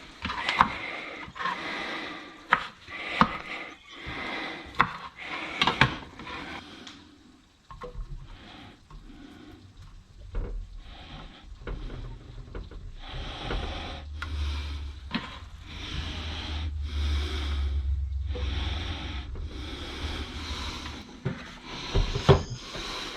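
Kitchen food prep by hand: a run of sharp taps and knocks of a utensil on a board or dish in the first six seconds or so, then scattered knocks and rubbing, scraping sounds with a low rumble in the middle.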